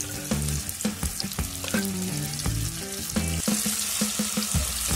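Blocks of tofu sizzling as they fry in hot oil in a non-stick pan, with metal tongs knocking lightly against the pan as the pieces are turned.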